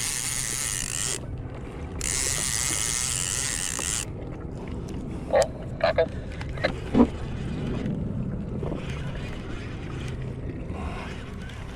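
Fishing reel ratcheting in two stretches, the first briefly at the start and a longer one of about two seconds, followed by a few short squeaks.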